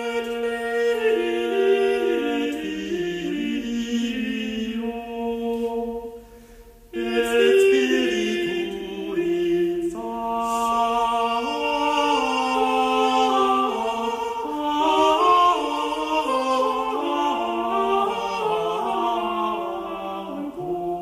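Soundtrack music: a choir singing slow, sustained chords without accompaniment. It breaks off briefly about six seconds in, then starts a new phrase.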